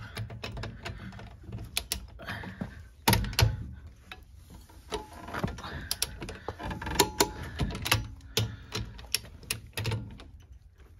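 Click-type torque wrench ratcheting and clicking as wheel nuts are tightened to torque: a run of sharp metallic clicks, with a heavier knock about three seconds in.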